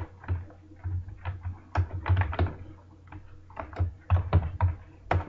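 Computer keyboard being typed on: clusters of key clicks with short pauses between them.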